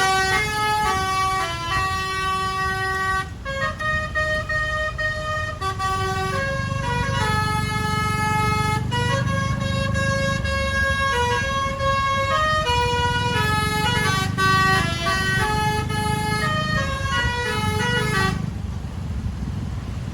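A Basuri musical bus horn plays a long tune of held notes that step up and down in pitch, over a steady low rumble of engine and road. The tune stops about two seconds before the end.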